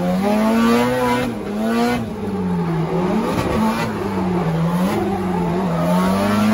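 Drift car's engine heard from inside the cabin, revving up and down with the throttle through a drift, its pitch rising and falling about once a second, with tyre squeal underneath.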